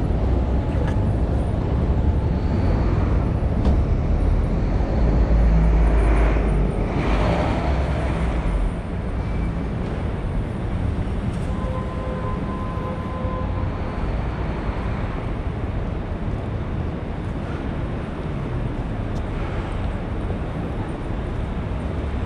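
City street traffic: a heavy low rumble of vehicles for the first several seconds, with one passing close about seven seconds in, then a steadier traffic hum. A brief steady tone sounds near the middle.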